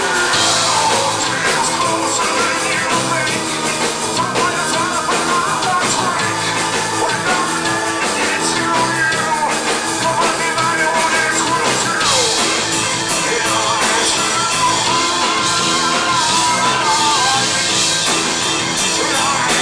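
Live nu-metal band playing a song: drum kit, guitars and bass under a wavering singing voice, with cymbals crashing more heavily about twelve seconds in.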